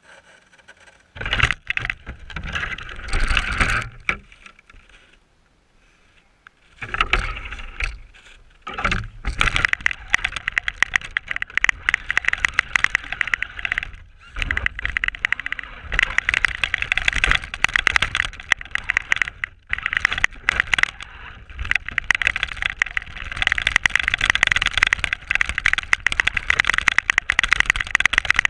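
Onboard sound of a Traxxas RC car driving through snow: the drivetrain and tyres churning, with a dense rattle from the chassis over rough ground. It starts in bursts about a second in, drops away around five to seven seconds, then runs almost without a break from about nine seconds on.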